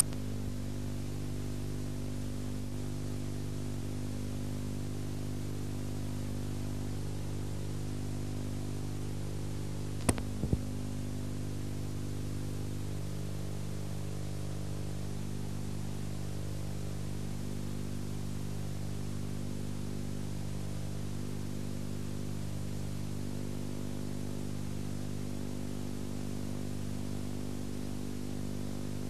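Steady electrical hum with several overtones over a bed of hiss, the background noise of an old video transfer, broken by two short clicks about ten seconds in.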